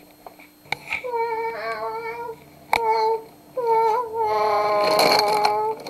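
Train horn sounded three times: a long blast, a short one, then a long one, each a chord of several notes held steady.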